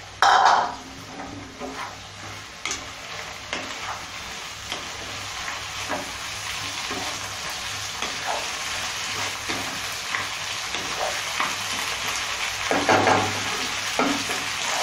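Mixed diced vegetables frying in an oiled non-stick wok, with a steady sizzle that builds slowly. A wooden spatula stirs and scrapes through them in irregular strokes, loudest just at the start and near the end.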